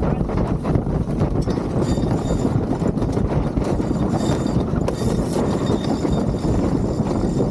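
Wind on the microphone and water rushing along the hull of a sailing yacht under way, a steady low rush.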